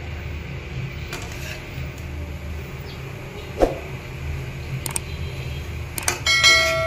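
A metal spatula clinks and scrapes against a wok and a plate while sauced shrimp are served, over a steady low hum. Near the end comes a subscribe-button sound effect: a few clicks, then a ringing bell-like chime that fades out.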